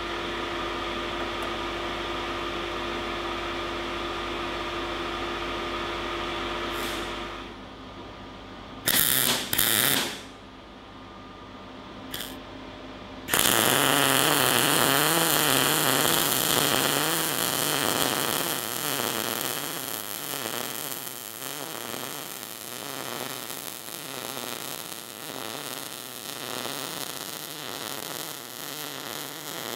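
MIG welding arc from a Decapower SYNMIG-200 multi-process welder: a steady hum, then two short arc strikes, then a continuous crackling, buzzing arc for about sixteen seconds that stops abruptly near the end.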